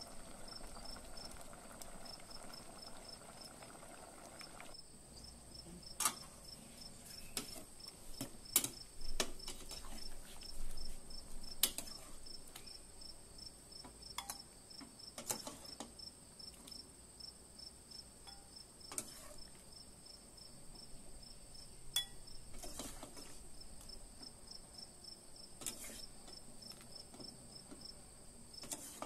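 A metal ladle knocks and clinks a dozen or so times against a stainless steel pot and a ceramic bowl as curry is scooped out and served. Under it an insect chirrs in a fast, even, high pulse without pause, and a soft simmering hiss from the pot stops about five seconds in.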